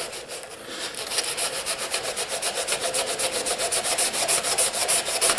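Abrasive sanding block scrubbed rapidly back and forth over the back of a steel chisel, scouring off surface rust: a fast, even scratching rhythm of several strokes a second, growing steadier about a second in.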